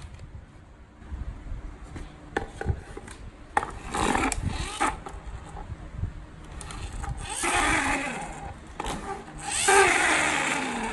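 Plastic toy vehicle knocked down onto a wooden board, then pushed back and forth across it in three strokes, its wheels rolling and rubbing on the wood.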